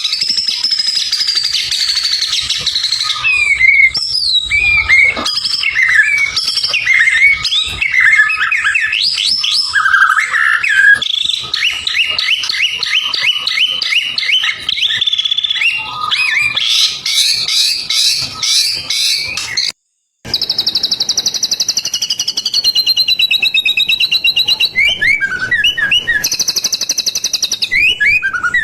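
White-rumped shama singing a continuous, varied song of whistled phrases, quick rising and falling notes and rapid repeated notes, the mimicked 'isian' phrases of a bird in full song. The sound cuts out briefly about two-thirds of the way through, then comes back as a long, fast, even trill.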